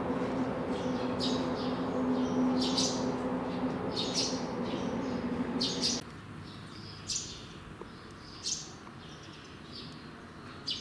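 Small birds chirping, short high calls repeated every second or so, over a steady low hum that cuts off suddenly about six seconds in.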